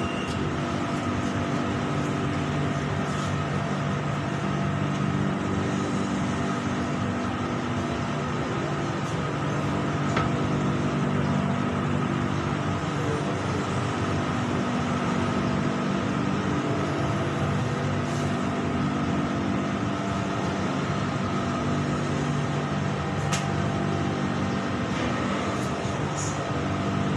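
Interior running noise of a BTS Skytrain electric train on the move: a steady rumble with a low motor hum that shifts in pitch a couple of times.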